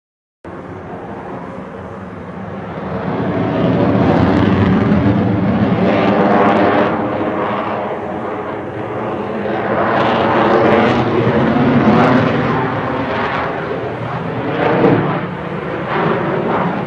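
Jet airplane engine noise that starts suddenly about half a second in, swells over the next three seconds, then rises and falls in loudness, a rough rush with steady engine tones under it.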